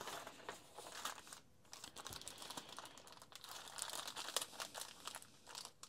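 Faint crinkling and rustling of packaging being handled, a plastic bag and paper inserts, as many small irregular crackles.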